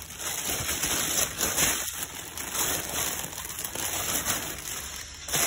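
Thin plastic bag crinkling and rustling as a paperback picture book is slid out of it, an irregular crackle throughout.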